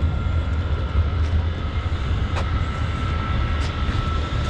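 A vehicle running with a steady low rumble and a faint steady whine, with a few sharp clicks.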